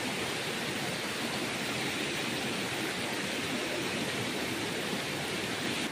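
Steady, even rush of water from a waterfall and its stream.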